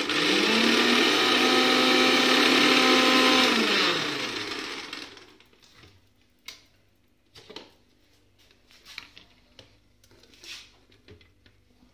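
An electric mixer grinder (kitchen blender) spins up quickly and runs at a steady pitch for about three and a half seconds while grinding a mango shake, then winds down with a falling hum. A few light knocks and clinks follow as the steel jar is handled and emptied.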